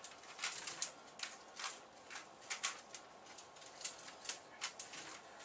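Rubik's Cube being turned by hand: a run of short, irregular plastic clicks as its layers are twisted, a few a second.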